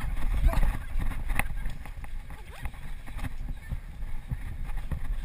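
Wind buffeting and irregular knocks on the microphone of a camera carried on the move, with children's shouts faint in the background.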